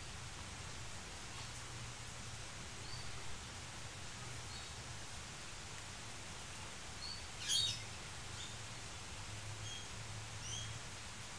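Faint, scattered short bird chirps over a low steady hum, with one brief scratchy sound about seven and a half seconds in.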